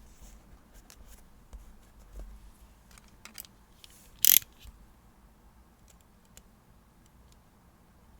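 Desk crafting sounds of paper and stickers being handled: scattered light taps and small rustles, with one short, much louder scrape or rip a little past four seconds in.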